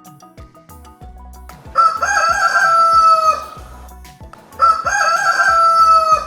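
Rooster crowing twice, each crow a wavering start then a long held note that falls away, over light background music with a steady beat.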